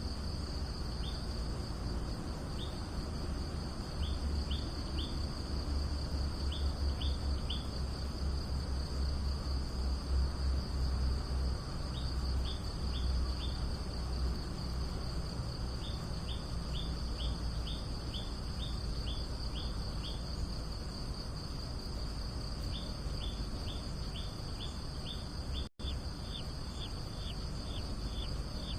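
Outdoor nature ambience: insects keep up a steady high-pitched drone, with runs of short, quick, falling chirps over it and a low rumble underneath. The sound cuts out for an instant near the end.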